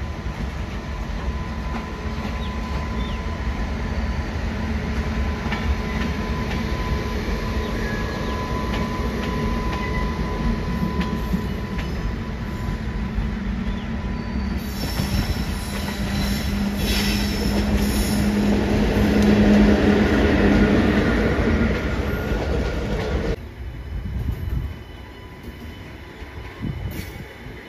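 A train running along the rails: a steady rolling rumble with thin whining tones over it. It grows loudest about two-thirds of the way through, then drops away sharply near the end.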